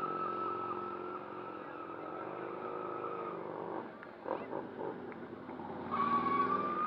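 Cruiser motorcycle's engine held at steady high revs, easing off about four seconds in, then revving up again near the end.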